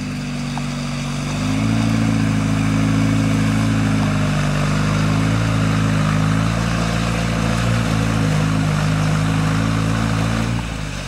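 Off-road truck engine running steadily. Its revs rise a little about a second and a half in, hold there, then ease off near the end.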